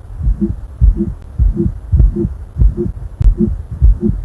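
A patient's heartbeat with a heart murmur, heard through a digital stethoscope. It beats steadily at about 100 beats a minute, each beat a low thud with a short higher-pitched tone on top.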